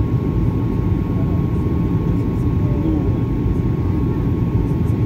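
Steady cabin noise of a jet airliner in flight on its descent: a dense low rumble of engines and airflow with a thin steady whine on top.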